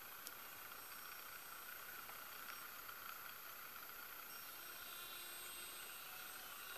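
Faint steady drone of a micro RC plane's small electric motor and propeller.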